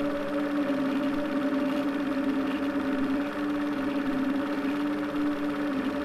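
Projector running: a steady motor hum whose pitch wavers slightly back and forth, over a constant whirr.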